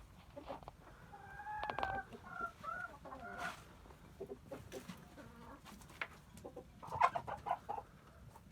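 Chickens clucking and calling: drawn-out, wavering calls in the first few seconds, then a quick run of short clucks about seven seconds in.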